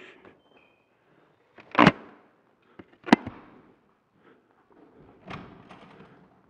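Knocks and thumps: two sharp, loud knocks about a second apart, then a softer thump near the end, with light rustling between them.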